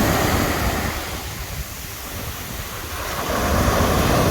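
Sea surf washing onto a beach, with wind buffeting the microphone. The surf eases about a second in and builds again near the end.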